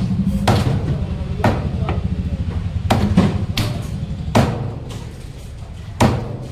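Heavy knife chopping a large fish into pieces on a thick wooden block: about eight sharp chops at uneven intervals, over a low steady hum.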